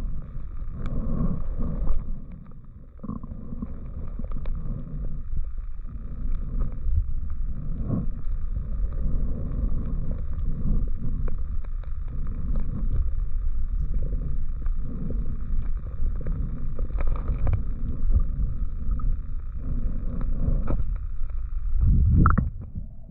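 Muffled low rumble and sloshing of water against an underwater action camera's housing as a diver swims, swelling and ebbing irregularly, with a faint steady high hum. There is a louder surge near the end.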